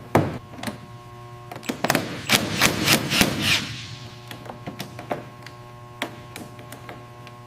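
A run of sharp metallic knocks and clanks from workshop tools, densest between about two and three and a half seconds in, then thinning to lighter ticks, over a steady background music drone.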